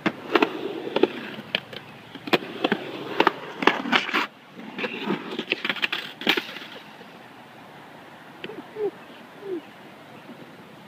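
Skateboard on concrete: wheels rolling, with a run of sharp clacks and slaps of the board and rider hitting the concrete as the skater falls. The knocks stop about six seconds in.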